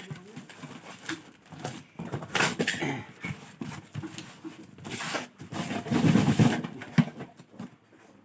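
A parcel being handled and opened by hand: rustling and tearing of packaging with scattered knocks, loudest about six seconds in, with a sharp knock shortly after.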